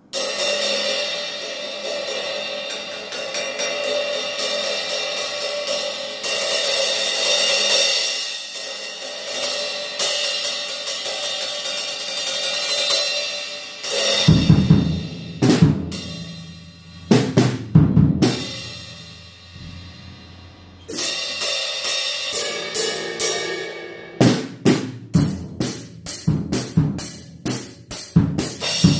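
Acoustic drum kit played with sticks. For about the first fourteen seconds the cymbals are struck and left ringing. Then bass drum and snare hits come in among more cymbal crashes, and in the last few seconds it settles into a steady beat.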